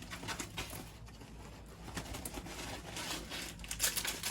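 Small plastic bags of diamond-painting drills rustling and crinkling as they are handled, with scattered light clicks, getting louder near the end.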